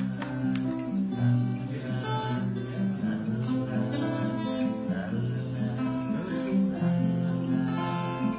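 Acoustic guitar being strummed, a steady run of chords.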